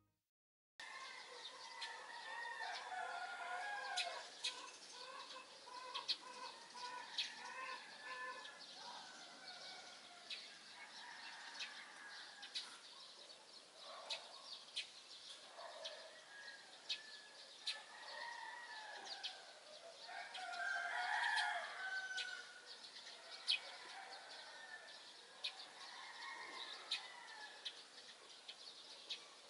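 Morning birdsong, fairly quiet: many short, sharp chirps with busier calling beneath, starting just under a second in, and a louder call around twenty seconds in.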